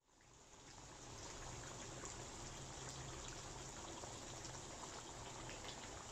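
Duck adobo simmering in its sauce in a wok: a faint, steady bubbling with many small pops, fading in from silence at the start, over a low hum. The sauce is being reduced at a simmer while the duck braises until tender.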